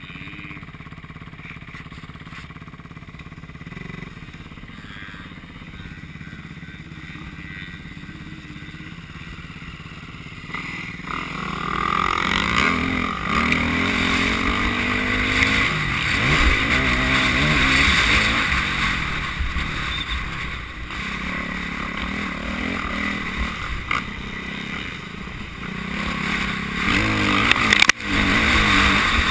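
KTM motocross bike's engine, heard from a camera mounted on the bike itself. It runs steadily and fairly quietly at first, then from about eleven seconds in it revs hard, its pitch rising and falling again and again as the bike is ridden around the dirt track.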